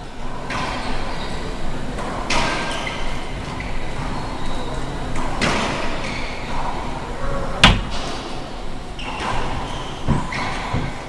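Racquetball rally: a series of sharp ball cracks off the racquet and walls, echoing in the court, about every two to three seconds, the loudest one past the middle.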